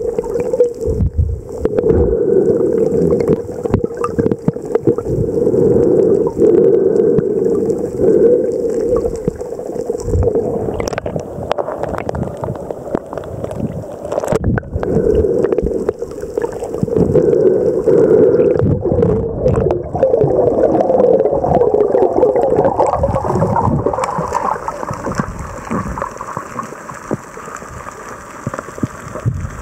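Muffled rushing and gurgling of water around an underwater camera moving through the sea, with scattered clicks and knocks.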